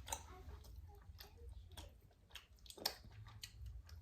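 Eating snow crab: close-up chewing and wet mouth sounds with scattered short clicks, the sharpest about three seconds in.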